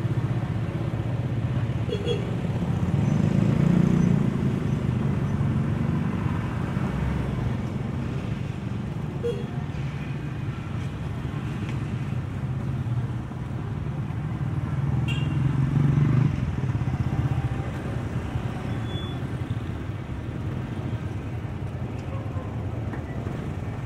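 Street traffic, mostly small motorcycle and motorized tricycle engines passing close by. It swells about four seconds in and again about sixteen seconds in.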